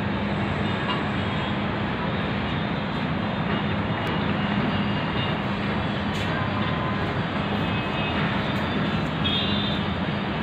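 Steady road-traffic noise, an unbroken wash of engines and tyres with a constant low hum underneath and a few faint short high tones near the end.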